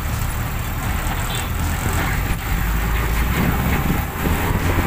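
A handmade Willys-style jeep's engine running steadily as the jeep drives along, a low engine rumble mixed with road and wind noise, heard from inside the jeep.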